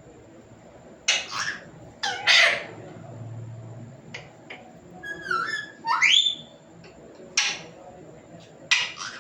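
Pet parrot calling in short, harsh squawks, with a run of gliding whistled calls about halfway through.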